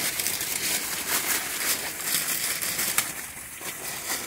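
Continuous crinkling and rustling of the paper wrapping used on grape bunches as it is handled and pulled off, with no low rumble.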